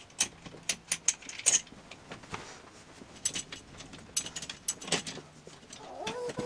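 Scattered clicks, taps and rattles of a metal scissor-arm microphone boom stand being handled and swung into position, with a cluster of sharp clicks in the first second and a half and a few more about five seconds in.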